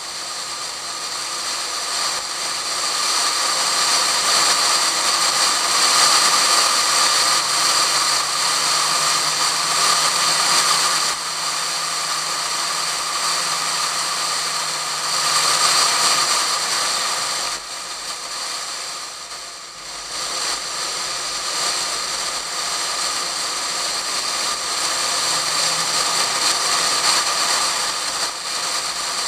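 Heavy wind noise buffeting a camera sealed in a waterproof case on the outside of a Pontiac Fiero at track speed, with the car's engine faintly beneath. The rush swells and eases with speed and drops off briefly about two-thirds of the way through.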